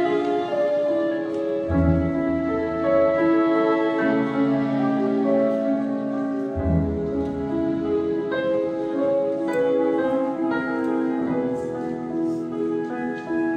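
A grand piano and a symphony orchestra playing classical music together, the strings bowing long held chords under the piano. Deep bass notes come in twice.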